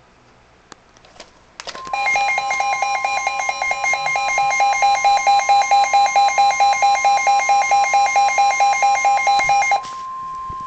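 Emergency alert attention signal for a severe thunderstorm warning: a steady high tone comes in about two seconds in, with a warbling alarm tone pulsing over it about five times a second. Near the end the warble stops and the steady tone carries on alone.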